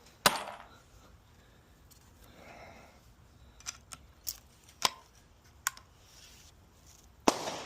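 Suppressed shots from a Rossi LWC break-action single-shot rifle in 300 Blackout with a Banish 30 suppressor, firing subsonic Winchester Super Suppressed 200-grain rounds. There is a sharp shot just after the start and another near the end. Between them come a few light clicks, typical of the action being broken open and reloaded.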